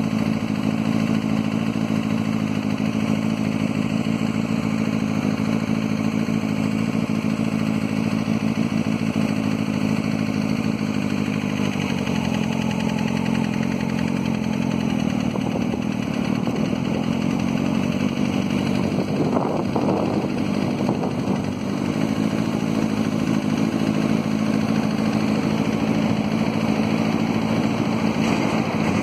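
Diesel-electric locomotive engine of a GE C30-7 running with a steady low drone while shunting. About twelve seconds in the note shifts and turns rougher, with a brief rising sweep near the twenty-second mark, then it settles back into a steady drone.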